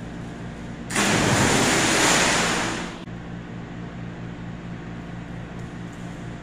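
A person jumping into an indoor swimming pool: a big splash starts about a second in, lasts about two seconds and fades away, over a steady low hum.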